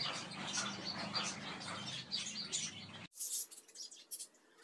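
Many small birds chirping and twittering in quick succession over a low steady hum. About three seconds in it cuts off abruptly, leaving a much quieter background with a few faint high ticks.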